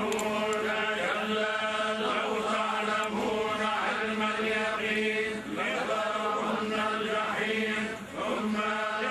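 A man chanting a Quranic recitation in long, wavering held notes, with brief breaths between phrases.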